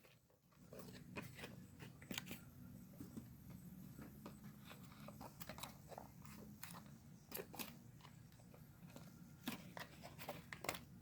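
Faint, scattered clicks and crinkles of plastic toy packaging being handled while the twist-tie wires holding the toys in are worked at by hand.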